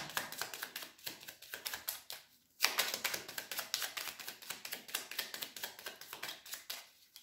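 A deck of Lenormand cards being shuffled by hand, hand over hand: a quick run of light clicks and slaps as the cards strike one another. There is a short pause about two and a half seconds in.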